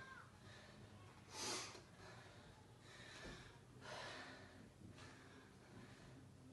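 A woman breathing hard while doing squats: two sharp exhalations about two and a half seconds apart, the first the louder, over a faint steady low hum.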